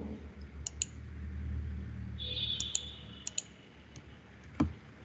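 Computer mouse button clicks, several in quick pairs, with a single stronger click near the end.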